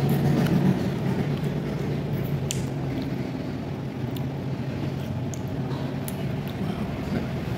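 Spoon and fork scraping and clinking now and then in a ceramic bowl of bakso and broth, with a few short ticks, over a steady low hum.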